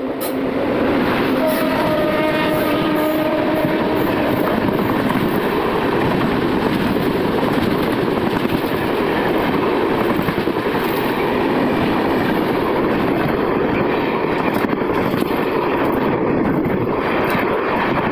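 Passenger train of LHB coaches passing close on the adjacent track: a loud, steady rumble of wheels on rail with clickety-clack over the joints. A locomotive horn sounds in the first few seconds as a held tone.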